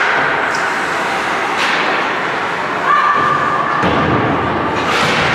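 A few dull thuds, like puck and bodies hitting the boards of an ice hockey rink, over steady arena noise. A voice calls out about three seconds in.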